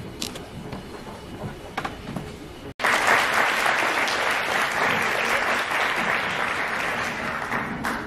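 Audience applauding, lighter at first. It cuts out for an instant about three seconds in, then returns as loud, sustained clapping.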